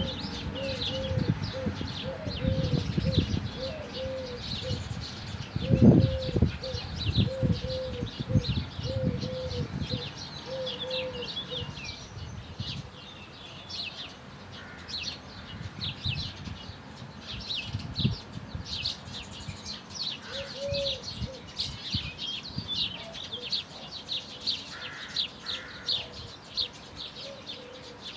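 Birdsong: many birds chirping in quick, high notes throughout, with a lower call repeated about twice a second during the first half. Low rumbling under the first half, with a bump about six seconds in.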